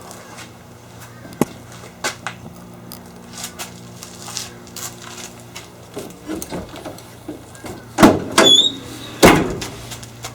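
Clicks and knocks of handling, then about eight seconds in a door is moved with a loud scrape and a short high squeal, followed by a second loud scrape a second later, over a steady low hum.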